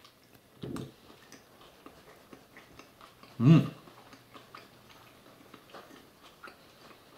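A man chewing a mouthful of sandwich, with soft wet mouth clicks and ticks throughout. There is a short breath under a second in, and a brief hummed 'mm' about three and a half seconds in, which is the loudest sound.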